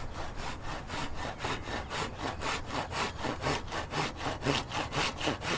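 Handsaw cutting through a wooden timber in quick, even back-and-forth strokes.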